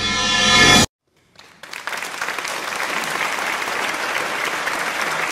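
A swelling sound of many steady tones grows louder and cuts off suddenly about a second in; after a short gap, steady applause fills the rest.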